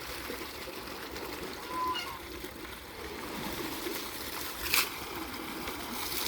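Water running and trickling steadily, with a short high squeak just before two seconds in and a sharp splash or knock near five seconds.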